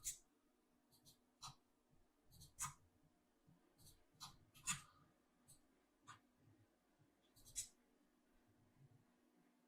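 Near silence broken by about a dozen scattered, sharp computer mouse clicks, over a faint steady low hum.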